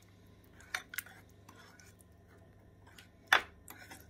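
Wire whisk stirring a thick tomato-paste sauce in a ceramic bowl, its wires clicking against the bowl a few times, the loudest click near the end.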